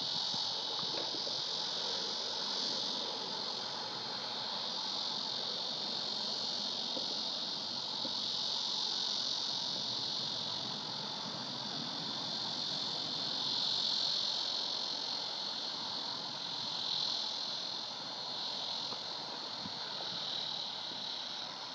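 Steady, high-pitched chorus of summer insects, swelling and easing slightly but never stopping.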